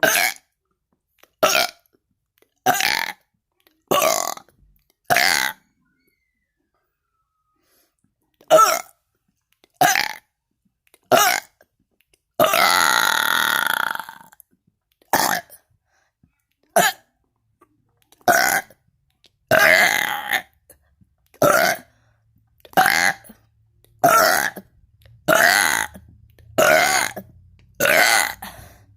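A person burping over and over: about twenty short, loud burps, mostly about a second apart. There is a pause of about three seconds early on, and one longer burp of about a second and a half near the middle.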